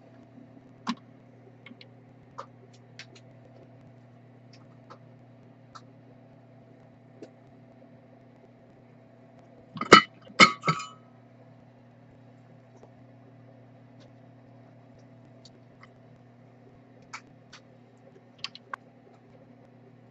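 Small metal tools clinking and tapping on a workbench during fine soldering work: scattered light ticks, with three sharp clinks close together about halfway through, over a steady low electrical hum.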